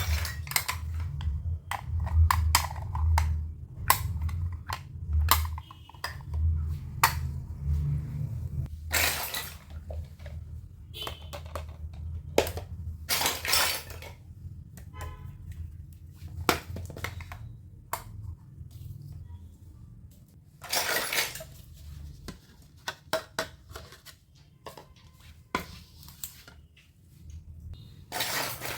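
Miniature plastic toy kitchen pieces handled and set down: scattered sharp clicks and light clattering, with a few longer rustles, over a low steady hum.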